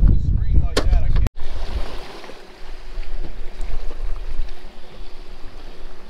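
Wind and sea around a small fishing boat offshore: a loud low rumble of wind on the microphone that cuts off abruptly about a second in, giving way to a softer, even wash of water and wind.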